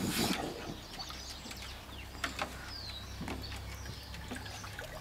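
A raccoon dabbling and splashing in the shallow water of a plastic kiddie pool while it forages, with one brief splash right at the start, then faint water sounds and small clicks. Birds chirp in the background.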